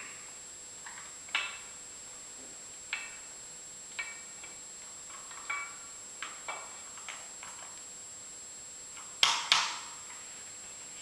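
Irregular metallic clinks and taps, each with a brief ring, from metal lathe parts knocking together as a part is worked into the headstock. About nine seconds in come two louder knocks in quick succession.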